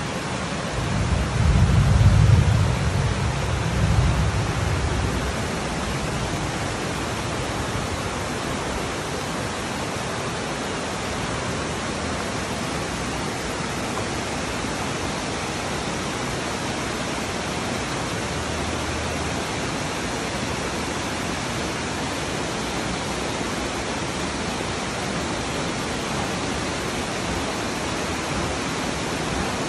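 Heavy rain pouring down steadily in a dense hiss. A low rumble rises over it about a second in and fades by about five seconds in.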